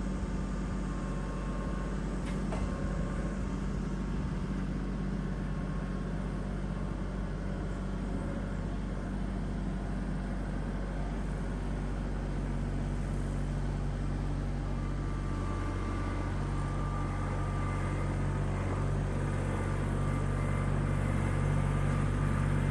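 Tractor engine running steadily while loading a log, its note changing about halfway through and growing a little louder near the end.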